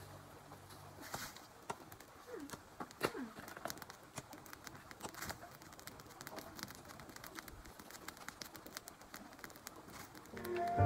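Faint scattered snapping and crackling of dry brush and twigs being pulled up by hand. A bird calls twice with short, low, falling notes about two and three seconds in.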